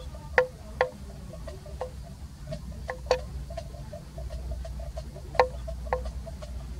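A small bell clinking irregularly: sharp knocks, each with a brief ring at the same pitch, about a dozen in all, the loudest near the start, about three seconds in and about five and a half seconds in. A low steady rumble runs underneath.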